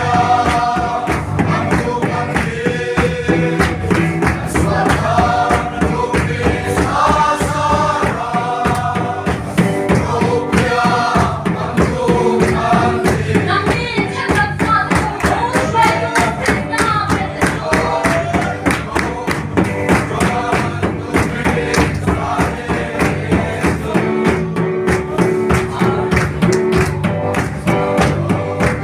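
Music: a song sung by voices over instrumental accompaniment with a steady beat.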